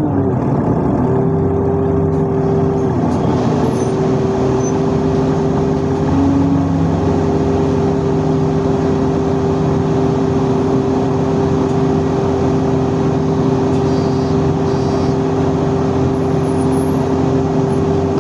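Metro train running at a steady speed: a loud, even rumble with a steady hum of several tones over it, shifting slightly about a third of the way in.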